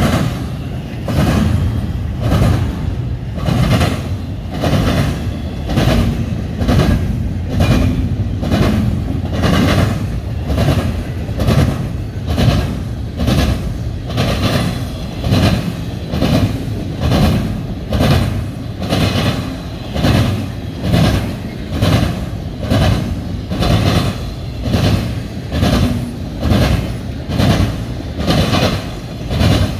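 Double-stack intermodal container train rolling past loudly, its wheels clacking over the rail joints in an even rhythm of a little more than one beat a second, over a steady low rumble.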